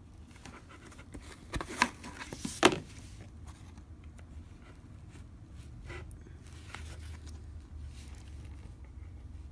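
A few sharp clicks and crackles of a football card's packaging being handled, loudest about two seconds in, then a faint low hum with occasional small clicks.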